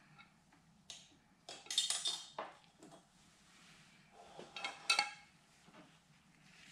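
Small metal parts and tools clinking and clattering with a brief metallic ring: a cluster of clatters about one and a half to two and a half seconds in and another, loudest, around five seconds in.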